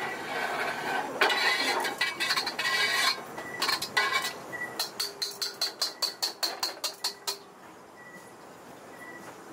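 Metal tongs clattering and scraping against a steel wok. About halfway through comes a quick run of even clicks, about five a second, which stops suddenly.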